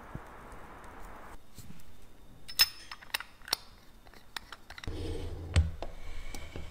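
Sharp little clicks and taps of tools and metal watch parts being handled, then a low thump as a case-back press closes the watch case.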